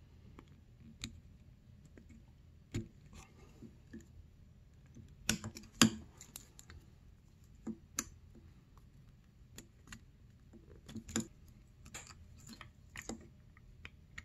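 Irregular small clicks and taps of hand tools against a snowmobile engine piston as a wrist-pin circlip is worked into its groove, with a louder cluster of clicks about five to six seconds in.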